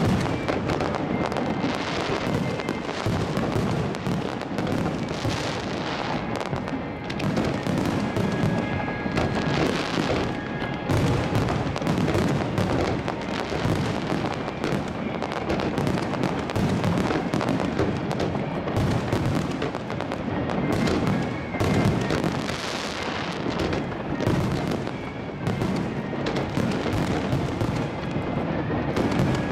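A fireworks display fired at close range: a dense, continuous volley of launch thumps, bursts and crackling from fountains, comets and aerial shells, with no pause.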